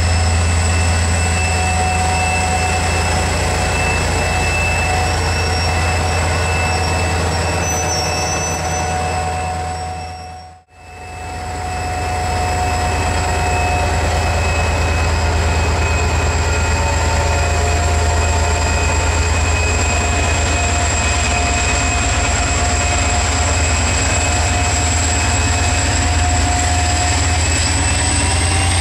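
Diesel-electric locomotive (EMD GT22HW-2) with passenger coaches: a steady low engine hum under several steady high whines. The sound fades out and back in about ten seconds in, and near the end the whines rise in pitch as the train gets moving.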